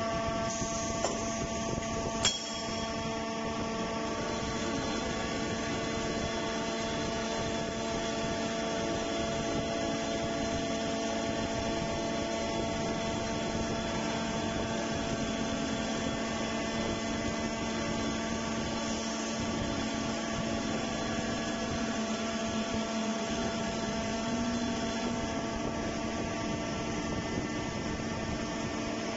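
Hydraulic forging machine running with a steady hum of several held tones while it forms a red-hot flange blank into a ring. One sharp click about two seconds in.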